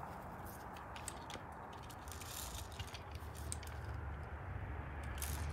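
Faint outdoor background with a few light clicks and rattles as a plastic AR-style airsoft rifle is picked up and handled.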